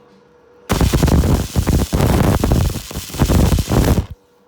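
Electric arc welding on a steel water-heater tank: a loud, steady crackling and sizzling arc that strikes up just under a second in, runs for about three and a half seconds, and cuts off sharply as the weld bead is finished.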